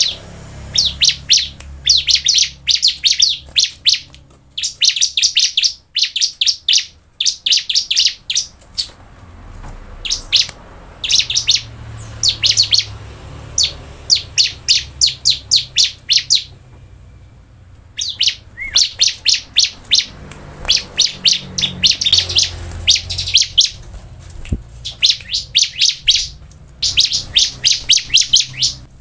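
Bar-winged prinia (ciblek) in full song: fast runs of high, sharp chirps repeated in bursts with short breaks, and a longer pause past the middle.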